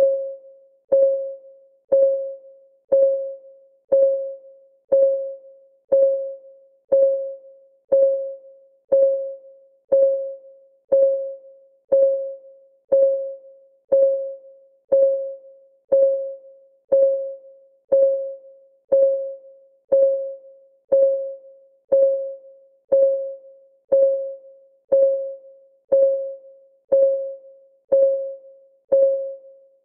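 Clock-ticking sound effect of a countdown timer: one sharp tick every second, each with a short, ringing mid-pitched tone that quickly dies away.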